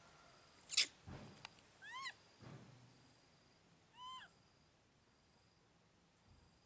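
Baby macaques calling: a sharp, high squeal about a second in, then two short, arching coo calls, one around two seconds in and one around four seconds in.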